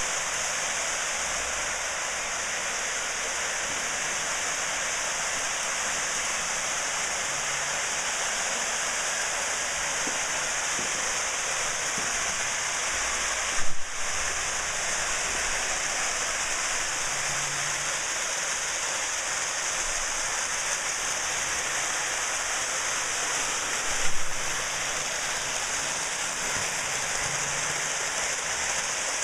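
Steady even hiss, with a faint low rumble that comes and goes and two brief knocks, about 14 and 24 seconds in.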